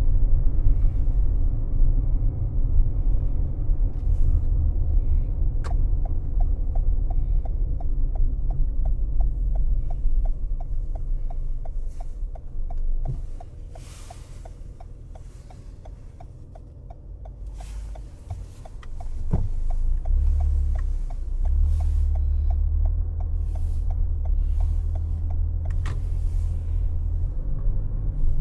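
Low road and engine rumble of a car driving, heard from inside the cabin. From about six seconds in, an even ticking at roughly three a second runs for some thirteen seconds, typical of a turn-signal indicator. Partway through, the rumble dies down for several seconds as the car slows, then rises again as it pulls away.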